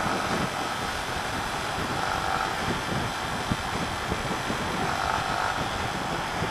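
Steady rush of wind and road noise from a motorcycle under way, heard through a camera microphone on the moving bike, with the engine running underneath.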